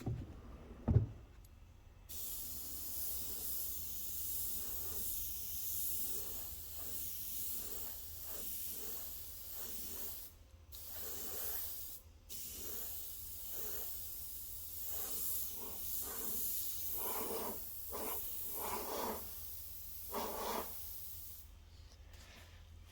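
Compressed-air paint sprayer hissing steadily as paint is laid on, cutting off briefly twice midway and stopping shortly before the end. A single sharp knock about a second in.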